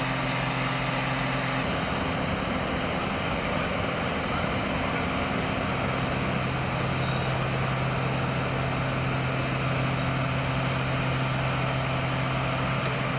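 Fire engine's engine and pump running steadily with a constant low hum, under a dense, even rushing noise.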